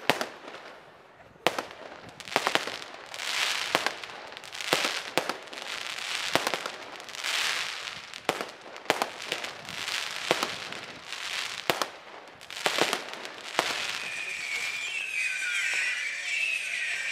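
Fireworks display: aerial shells and comets banging one after another at irregular intervals, with crackle and hiss between the reports. Near the end the bangs stop and a high, wavering warble takes over.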